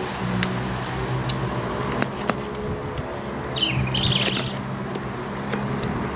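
Birds chirping, with a couple of quick falling chirps about three to four seconds in, over scattered sharp clicks and rustling from the PVC seat cover being cut and pulled away from the seat.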